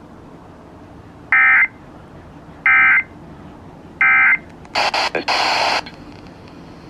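Three short bursts of Emergency Alert System SAME header data, the warbling digital tones that open an EAS alert, about a second apart. About a second of loud hissing static follows.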